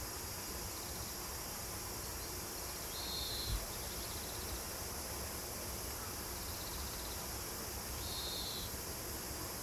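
Insects shrilling steadily at a high pitch, with a short buzzy call repeating every few seconds and a single dull thump about three and a half seconds in.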